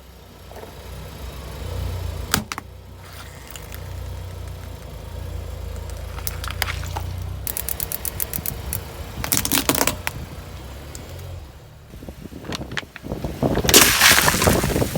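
A car's engine running slowly as its tyres roll over objects and crush them. There are several bursts of crackling and crunching, and the loudest comes near the end.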